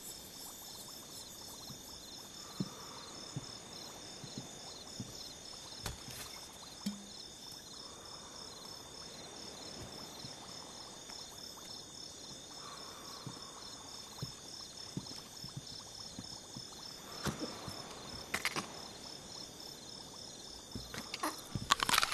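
Crickets chirping steadily in a night-time ambience, with a few scattered soft knocks and clicks, the loudest about two-thirds of the way in.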